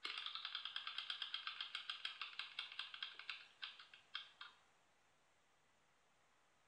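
Ticking sound effect of an online spinning name-picker wheel, played by the computer: rapid ticks, about seven a second, that slow down as the wheel coasts and stop about four and a half seconds in as it comes to rest on a name.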